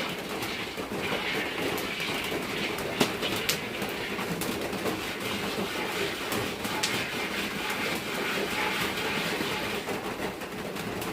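Rain drumming on a corrugated iron-sheet roof: a steady dense patter with many sharp ticks scattered through it.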